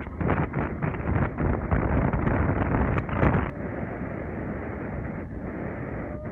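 Wind buffeting the microphone of a camera on a moving vehicle, over the rush of road and engine noise. The gusty flutter gives way to a steadier, softer rush about three and a half seconds in.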